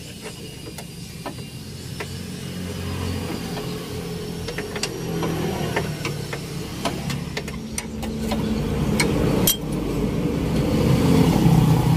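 A vehicle engine hums steadily and grows louder toward the end. Over it come scattered metallic clicks of a wrench working the bolts of the front stabilizer-bar bushing clamp.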